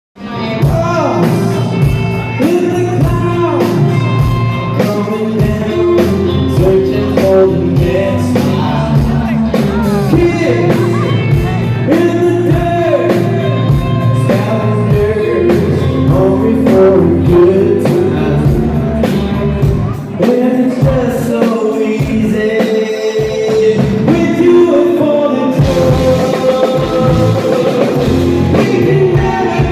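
Live rock band playing with a lead singer, electric guitar and drum kit, loud and steady.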